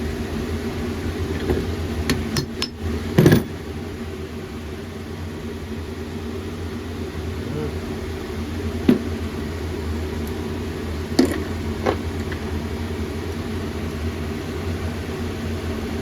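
Hand tools and small engine parts clinking and knocking on a workbench while a cylinder head is stripped down. A cluster of knocks comes about two to three seconds in, the loudest just after three seconds, then single sharp clinks later, all over a steady hum.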